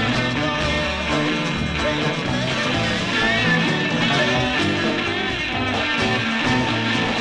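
Instrumental rock music with guitar and a full band, no singing.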